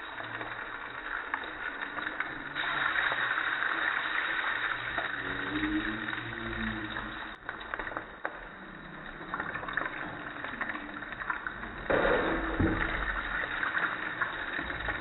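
Marinated surmai (kingfish) pieces sizzling and bubbling in hot oil in a frying pan. The sizzle gets louder about two and a half seconds in and again near twelve seconds, as more pieces go into the oil.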